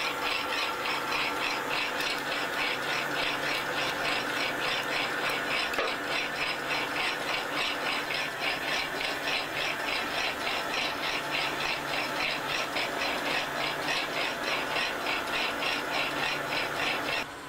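A production machine running at a steady rate, with a high, squealing pulse repeating about four to five times a second over a constant mechanical hum. It cuts off suddenly at the end.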